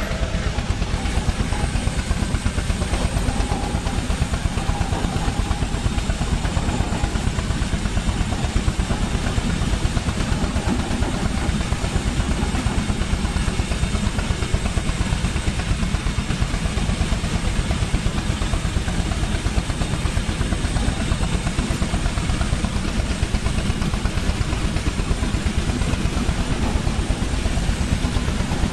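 Steam traction engine running with a steady, rapid beat, mostly low in pitch.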